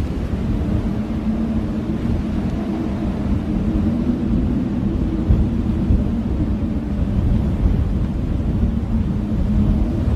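Howling blizzard wind: a steady deep rumble with a low, wavering howl over it.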